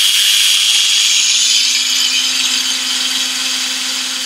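Cordless drill running at a steady speed with a steady whine, spinning an outboard's drive shaft to turn the water pump impeller; the pump, primed by the raised water level, is pumping water.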